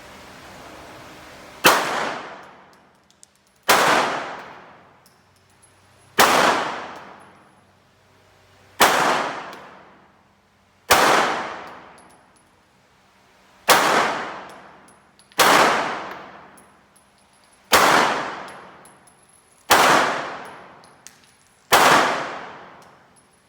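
Ten single gunshots fired one at a time, about two seconds apart. Each is a sharp crack followed by a long ringing decay that dies away over about a second and a half.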